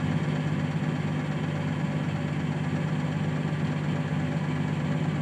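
Heavy-equipment engine idling steadily with an even, low hum.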